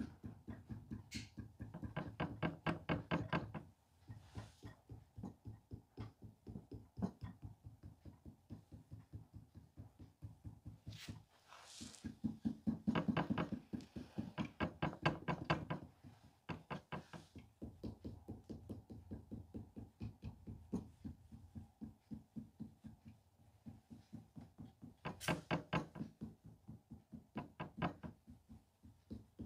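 Rapid, rhythmic tapping of a flat sculpting tool against the clay of a figure, about five knocks a second, in runs of a few seconds with short pauses between.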